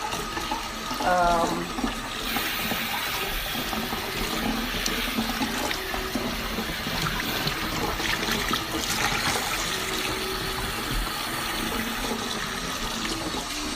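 Water running steadily from a tap, getting stronger about two seconds in.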